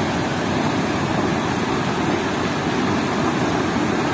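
Water pouring through an open sluice gate of a weir and churning into the pool below: a loud, deep, steady rush with no breaks.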